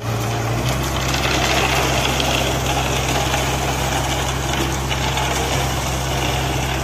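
Concrete mixer truck's diesel engine running steadily with a low, even hum and rough rattle, driving the turning drum as it discharges concrete down the chute.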